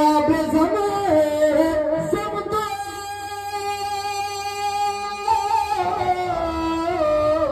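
Devotional naat singing: a single voice holding long, ornamented notes without words, in the style of a qawwali alaap.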